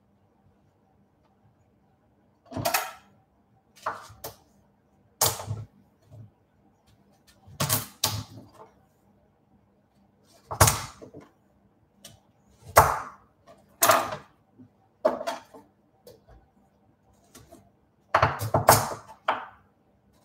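A kitchen knife that is not very sharp chopping through pumpkin and knocking on the cutting board: a dozen or so irregular knocks, roughly one every second or two, coming closer together near the end.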